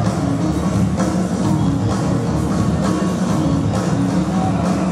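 Dance music with a steady drum beat, played loud over PA speakers in a gym hall.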